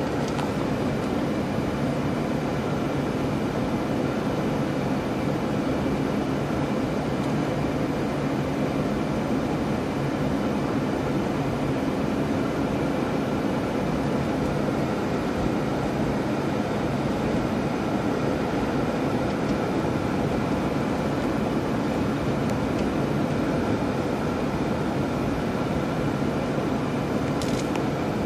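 Steady road and engine noise inside a moving car's cabin, with a faint even hum under the tyre rumble.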